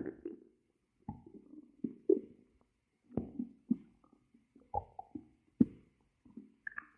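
Hungry human stomach growling: a string of short, irregular gurgles and squelches with brief gaps between them, several starting with a sharp click.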